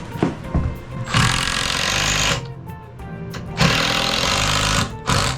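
A handheld power tool runs in two bursts of about a second each, with background music underneath.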